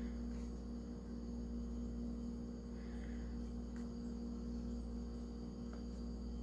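Steady low electrical hum with a faint high-pitched whine above it, and a couple of faint light taps.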